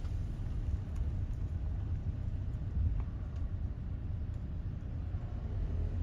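Steady low rumble with a faint hiss above it.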